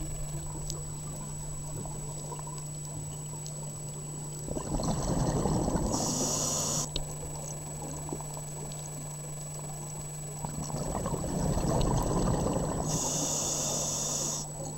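Scuba diver breathing through a regulator underwater: twice, a bubbling rush of exhaled air is followed by a short hiss of the inhale through the demand valve, the two breaths about seven seconds apart. A steady low hum runs underneath.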